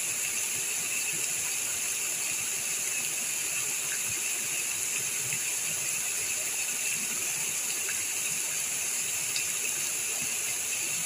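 Small waterfall pouring over rock into a pool: a steady rush of falling water.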